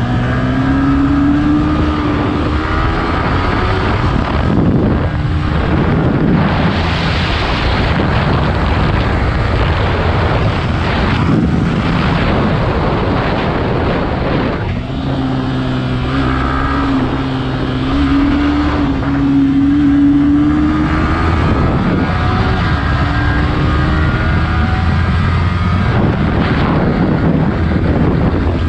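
Yamaha R15 V3's single-cylinder engine heard from the rider's seat, revving up through the gears with a rising pitch, then easing off and pulling again several times. Wind and road noise run underneath.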